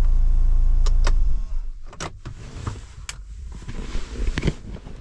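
Minivan engine idling, heard from inside the cabin, cuts off suddenly about a second in; a series of sharp clicks and knocks follows.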